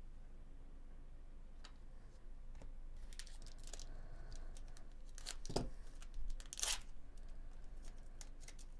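Wrapper of a Bowman Chrome baseball card pack being torn open by hand: a run of short rips and crinkling rustles, loudest about halfway through.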